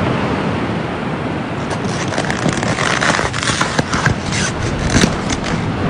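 A steady rushing noise like wind or surf, with scattered scraping and clicking sounds through the second half.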